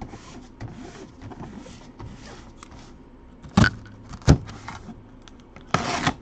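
Small cardboard box being handled by gloved hands: soft rubbing and shifting, two sharp knocks about halfway through, then a short scraping rasp near the end.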